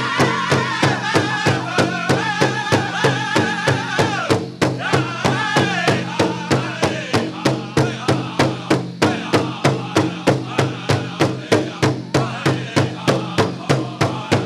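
Powwow drum group singing over a steady drumbeat of about three strikes a second. The singing is high-pitched for the first four seconds or so, then carries on lower.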